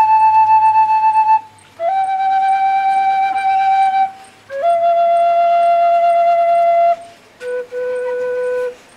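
Akan atenteben, a Ghanaian bamboo flute, played solo. It holds long steady notes in a slow falling phrase: each new note is lower than the last, with short gaps between them. The last and lowest note comes near the end.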